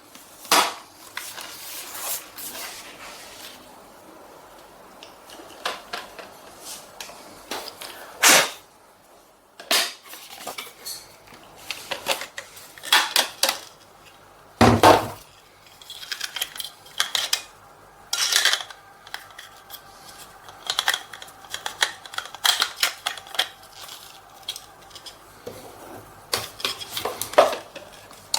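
Irregular clicks, knocks and clatter of hard plastic parts of a cordless stick vacuum being handled, with a heavier thump about halfway through.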